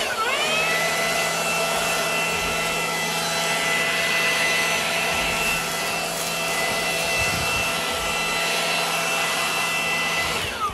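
Milwaukee M18 FUEL cordless leaf blower running: its brushless fan whine climbs into a steady high pitch over a strong rush of air, holds steady while blowing leaves, and starts to wind down at the very end.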